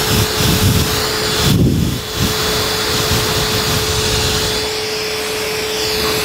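Milwaukee M18 FUEL PACKOUT 2.5-gallon cordless wet/dry vacuum running as a blower, with the hose on its exhaust port: a steady rush of air over a constant motor whine. Irregular low rumbles come from the air stream sweeping across the microphone.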